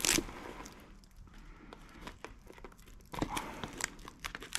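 Clear protective wrap on a hard plastic CRF50-style fender crinkling, with the fender clicking and knocking as hands handle it and fit it against the bike: a sharp rustle at the start and a cluster of clicks and rustles in the last second and a half.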